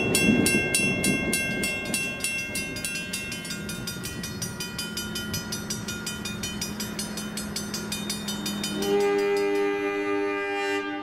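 Railroad crossing bell ringing rapidly, about four to five strikes a second, while a diesel passenger train's rumble fades away. Near the end a locomotive air horn sounds one long chord.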